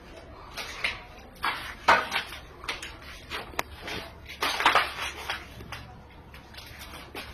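Irregular knocks, clicks and clatter inside a fire-gutted house, with the strongest bursts about two and nearly five seconds in.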